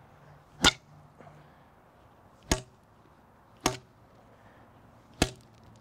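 A 3D-printed pipe bender on a metal handle slammed down onto asphalt four times, each strike a sharp crack with a brief ring, one to two seconds apart.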